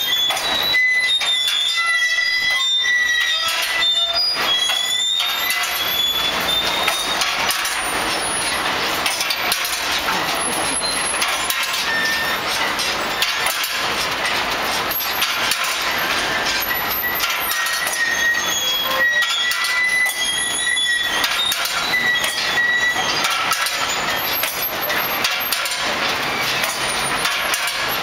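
Jean Tinguely's Heureka (1964), a kinetic sculpture of scrap metal and wheels, running: a continuous rattling and clanking of metal parts, with high squeals from turning wheels and joints that come and go.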